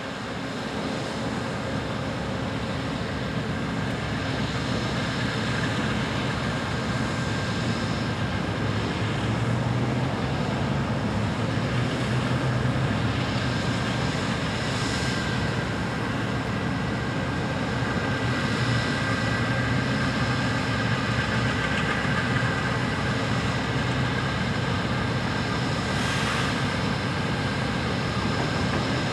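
Steady mechanical drone of an Amtrak passenger train standing at the platform with its engines and onboard equipment running, a low hum with a couple of thin whining tones. Brief hisses come about halfway through and again near the end.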